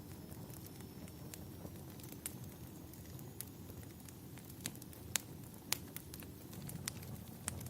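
Wood fire burning steadily with a low rumble and irregular sharp crackles and pops, the loudest pops a little past the middle.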